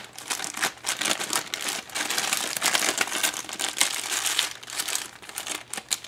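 Clear plastic bag crinkling and rustling as hands handle it and work a coiled hose out of it.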